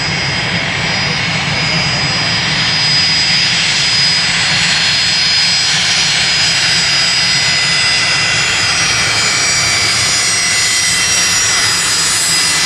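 Fokker 70 jet taxiing, its two rear-mounted Rolls-Royce Tay turbofans running at low power with a steady roar and several high whining tones.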